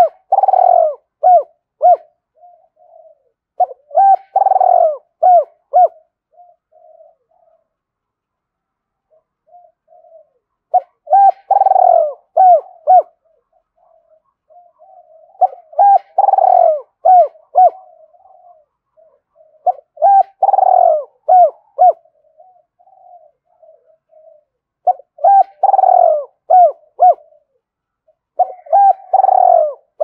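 Spotted dove cooing: loud phrases of several short, falling coos, repeated about every four to five seconds, with softer coos between the phrases.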